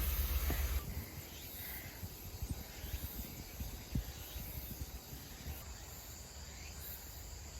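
Insects chirping faintly in a forest, a thin steady pulsing high up. A low rumble stops about a second in, and soft low knocks come and go.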